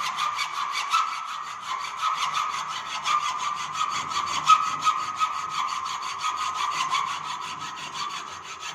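Hand hacksaw cutting through the last few millimetres of a mild-steel flat clamped in a bench vice, with continuous rasping strokes over a steady high ring. It is the finishing stage of the cut, just before the piece is severed.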